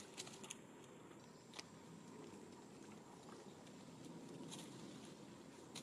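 Near silence: faint outdoor background with a few scattered light clicks, several in the first second and one or two later.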